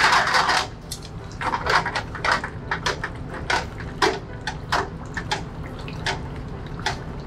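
Long cooking chopsticks clinking and knocking against the metal noodle baskets of a ramen noodle boiler as thin noodles are stirred in the boiling water, with irregular clatters over a steady low rumble.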